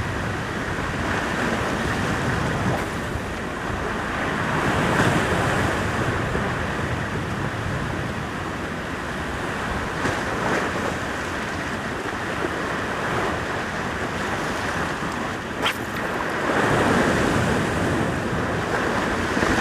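Heavy ocean swell surging and breaking against a rock ledge, with wind buffeting the microphone; the surf swells louder a few seconds in and again near the end.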